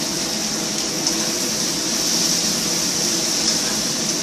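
Stir-fry vegetables sizzling steadily in a pan of hot oil, an even hiss.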